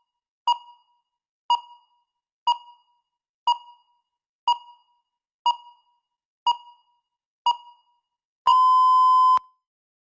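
Countdown timer beeping once a second, with eight short beeps, then one long beep of about a second near the end as the countdown reaches zero, signalling that the preparation time is up.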